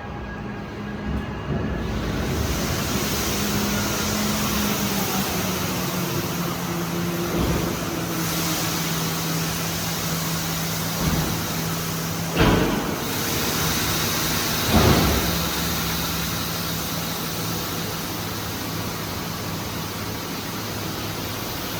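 Tractor engine running as it brings a grain trailer in, over a steady rushing hiss; its hum dips slightly in pitch a few seconds in. Two sharp clanks come about halfway through.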